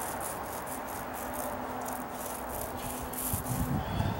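A small paint roller rolling wet primer onto a wooden stair tread, making a rhythmic swishing, sticky rasp with each stroke. A low rumble comes in near the end.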